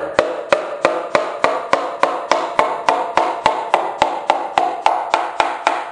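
Wooden hammer handle tapping on a piston crown, about three quick taps a second, driving the piston through a ring compressor into a cylinder bore of a Ford 200 straight-six block. Each tap rings with a metallic tone that hangs between the strikes.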